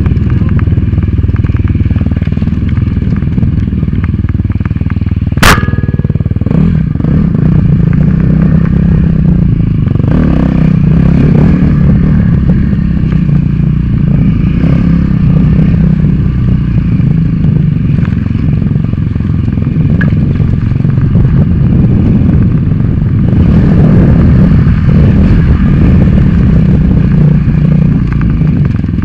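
Dirt bike engine running hard at riding speed, its note rising and falling with the throttle, with clattering from the ride over rough trail. A single sharp knock comes about five and a half seconds in.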